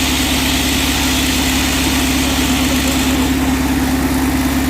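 Shotcrete machine's engine running steadily at a constant speed: an even, unchanging hum with a hiss over it.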